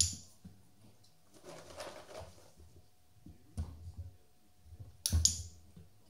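A handheld training clicker clicks twice, once at the start and again about five seconds in. Each is a sharp double click, marking the moment the dog takes hold of the tug toy. Between the clicks there is soft rustling and a dull knock.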